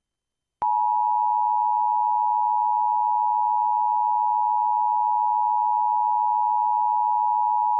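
Emergency Alert System attention signal: a loud, steady two-tone alert tone (853 and 960 Hz) that starts about half a second in. It announces an emergency alert, here a severe thunderstorm warning.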